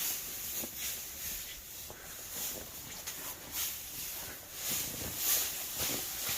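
Loose straw rustling and swishing as it is spread out for cattle bedding, in uneven strokes that are a little louder about five seconds in.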